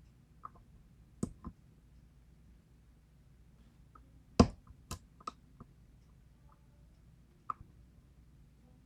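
Small, sharp, irregular clicks of a lock pick and tension wrench working the pins inside a Schlage KIK lock cylinder. About nine clicks are spread unevenly, with the loudest about four and a half seconds in.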